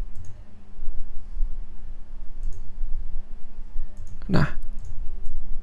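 Computer mouse clicking several times over a low, steady hum. About four seconds in, a single short, loud burst of noise stands out.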